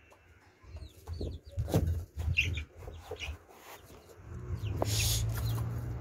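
Young chickens clucking in short, scattered calls, mixed with knocks. A low rumble comes in about four seconds in.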